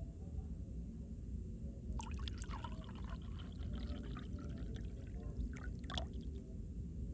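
Creamy pine nut sauce poured from a jug into a wooden bowl of noodles: soft, irregular splashing and trickling that starts about two seconds in and stops about six seconds in.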